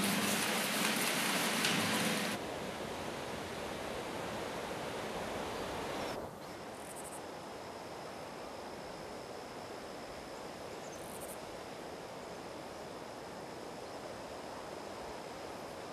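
Outdoor ambience of steady hiss. A louder rushing noise stops abruptly about two seconds in, and a second change comes near six seconds. From about seven seconds a faint steady high insect drone runs on, with two brief high chirps.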